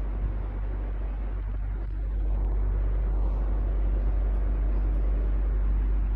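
Electric fan running steadily: a low motor hum under an even rush of air, slightly louder from about two seconds in.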